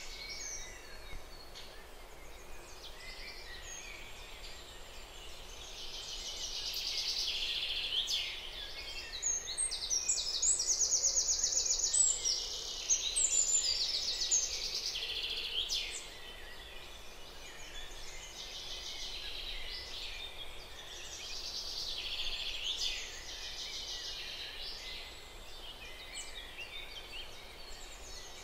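Woodland ambience of many birds singing and chirping, with rapid trills loudest about nine to fourteen seconds in.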